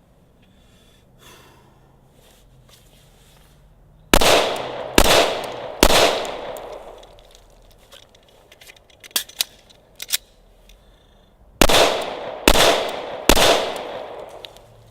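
Glock 21 Gen 4 .45 ACP pistol fired in two quick strings of three shots, under a second between shots and about six seconds between strings, each report ringing out and dying away. A few light clicks come between the strings.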